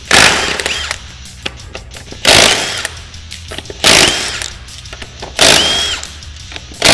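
Cordless impact wrench zipping off a wheel's lug nuts in five short bursts about a second and a half apart, each a hammering whir that spins up and winds down.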